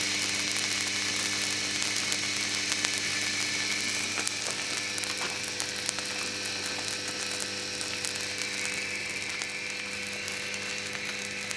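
Dishwasher pump motor running while it burns out: a steady electrical hum with a continuous scattering of small crackles and rattles.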